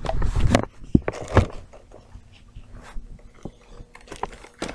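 Handling noise as snack packages are moved and set down: a few knocks and rustles in the first second and a half, then faint scattered clicks.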